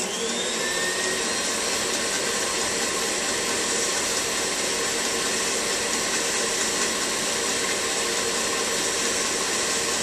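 Electric tilt-head stand mixer running steadily, its beater blending butter, shortening, confectioner's sugar, egg and extracts in a stainless steel bowl until smooth: the creaming stage of cookie dough.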